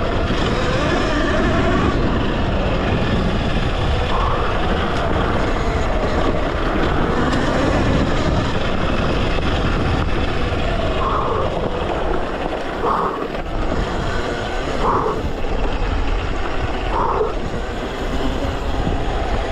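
Talaria Sting electric dirt bike's motor whining, its pitch rising and falling with the throttle, over a steady low rumble. In the second half there are four short higher-pitched whines about two seconds apart.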